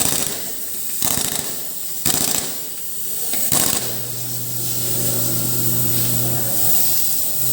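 Pneumatic impact wrench firing in short rattling bursts about once a second, as on lug nuts during a tire change. About four seconds in, a machine motor starts a steady hum.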